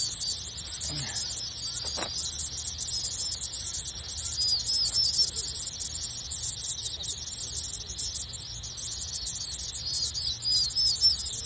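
Steady chorus of summer insects, a dense high buzzing. Runs of short curved chirps stand out about four and a half seconds in and again near the end.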